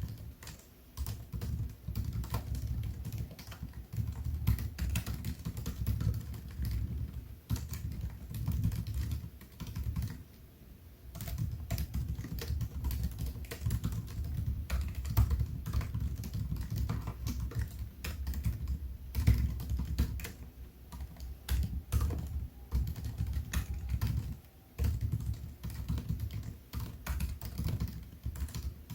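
Typing on a MacBook Air laptop keyboard: quick runs of soft keystroke clicks, with a couple of short pauses.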